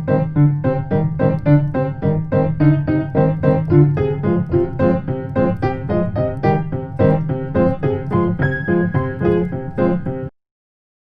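Piano playing a quick, even run of notes, about four a second, over a low held note, in C minor; it stops abruptly about ten seconds in.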